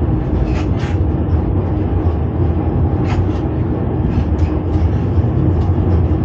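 1981 Reko electric railcar set running along the track, heard from inside its driving cab: a steady rumble of wheels on rail with a low hum, crossed by a few short, sharp clicks.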